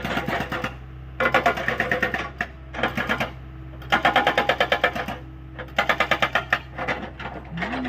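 Hydraulic rock breaker on a Hyundai 85A excavator hammering in three bursts of rapid, evenly spaced blows, about ten a second, over the steady hum of the excavator's engine.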